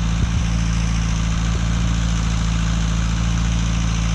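An engine or motor running steadily at a constant pitch, a low, even drone.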